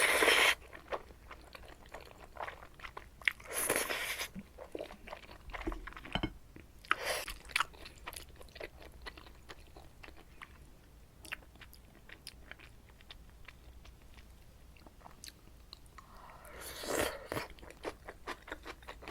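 Close-miked eating of jajangmyeon (black bean noodles): wet chewing and small mouth clicks, broken four times by short noisy slurps, once at the start, twice in the next seven seconds and once near the end.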